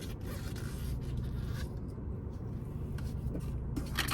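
A utensil scraping and scooping baked beans in a takeout container, scratchy at first, with a sharp click near the end, over a steady low hum.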